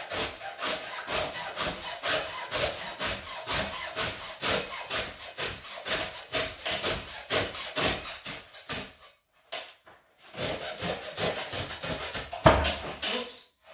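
Hacksaw cutting through a thick, worn three-strand climbing rope in quick back-and-forth strokes, about three a second. The sawing stops briefly about nine seconds in, then resumes, with one louder thump near the end.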